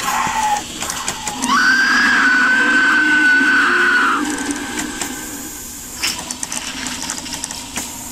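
Animated Grim Reaper Halloween prop's sound effects played from its sound card: a high held tone that slides up about a second and a half in and stops about four seconds in, over steady noise.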